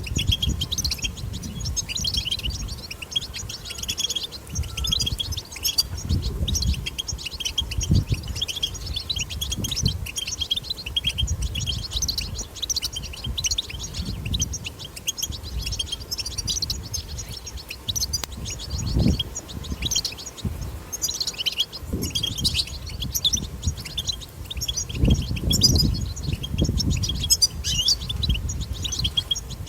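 European goldfinch twittering song: a dense, rapid, unbroken stream of high chirps and trills, with low rumbles underneath.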